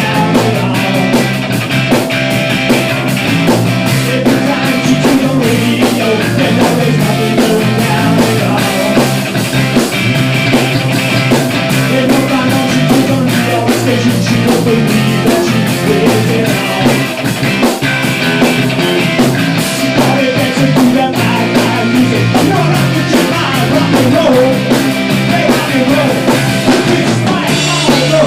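Rock band playing a loud, steady punk-rock song with guitar, bass and drums.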